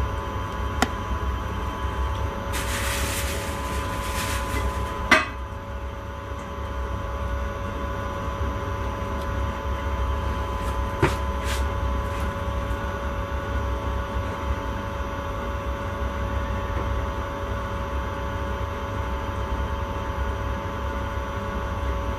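Electric intercity train running at speed, heard from the driver's cab: a steady low rumble with a constant electric whine. A hiss lasts a couple of seconds and ends in a sharp click, and a few fainter clicks follow later.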